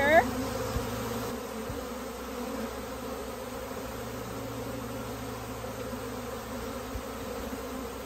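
A swarm of honey bees buzzing steadily: many bees flying around the clustered swarm as it is disturbed and scooped into a box.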